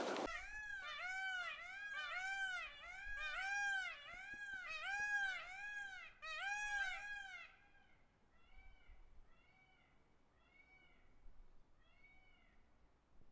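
Indian peafowl calling a rapid series of short, meow-like rising-and-falling calls, about two a second. After about seven seconds the loud run stops and fainter calls of the same kind continue.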